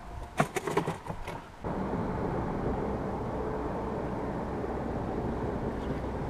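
A few sharp knocks and clatters as a crappie is handled into a boat cooler. About a second and a half in, a steady low rumbling noise starts abruptly and runs on.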